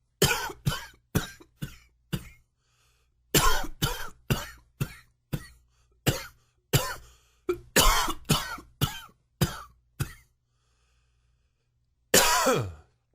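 A man in a coughing fit: a burst of about five harsh coughs, a short pause, then a longer run of a dozen or more, and near the end one drawn-out cough whose pitch falls. The uploader labels it a smoker's cough.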